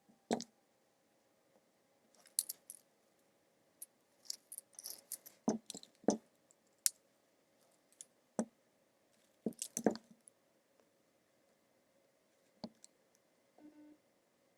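Small metal jewelry parts and hand tools clicking, tapping and clinking against a work surface while an earring is assembled. Irregular sharp clicks and knocks come with a few short jingly clusters of metal on metal.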